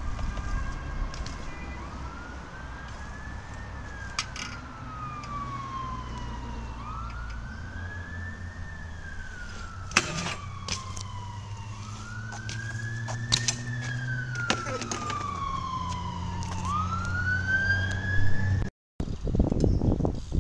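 An emergency-vehicle siren wailing, its pitch rising and falling slowly in cycles of several seconds, until it cuts off abruptly near the end. A few sharp knocks from the BMX bike on concrete break in, the loudest about ten seconds in.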